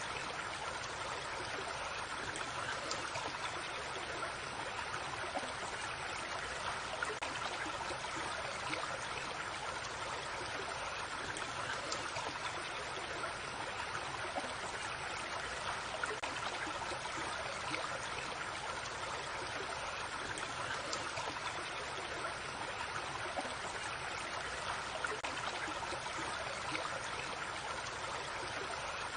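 Creek water running steadily over stones, a continuous babbling and trickling.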